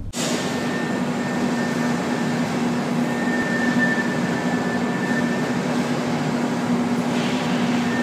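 Steady hum of running machinery: a constant low tone with a fainter high whine above it, unchanging throughout.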